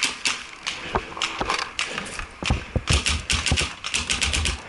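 Paintball marker firing close by: single shots at first, then a fast string of about eight shots a second in the second half.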